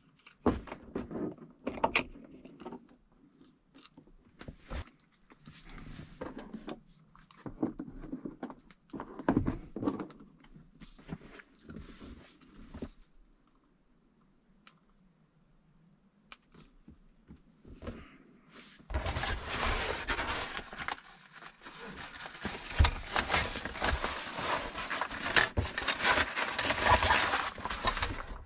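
Small metal clips clicking and clinking as gear is hung from the car's ceiling grab handle, with short handling sounds. After a quiet pause, a longer, louder stretch of rustling and rummaging with a few dull thumps, as gear is moved about on the bed platform.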